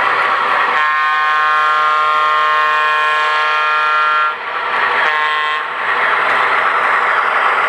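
O-gauge model Alco PA-1 diesel locomotive's onboard sound system sounding its diesel air horn: one long blast starting about a second in, then a short one, over the steady running noise of the train.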